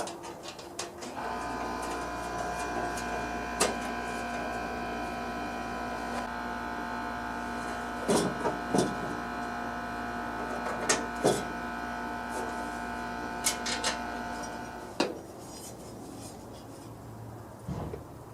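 A small motor runs steadily with a hum for about fourteen seconds, then cuts off suddenly, with scattered clicks and clinks of metal parts over it.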